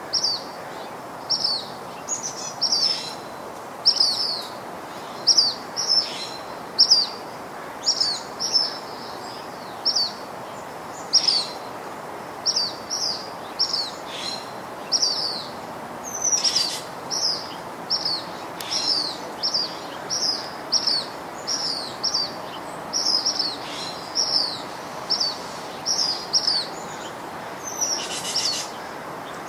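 A bird calling over and over, short high chirps at about two a second, over a steady outdoor background hiss.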